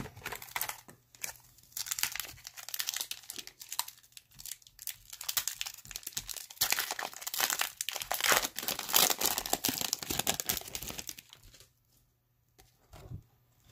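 A card pack's wrapper being torn open and crinkled by hand, a dense crackling that goes on for about eleven seconds and stops near the end.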